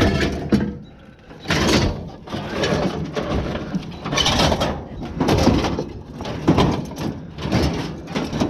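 A series of noisy knocks and scrapes, roughly one a second, from objects being handled or moved.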